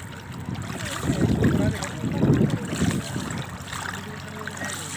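River water splashing and swishing as a hand is dragged through it beside a boat, with two louder swishes about one and two seconds in.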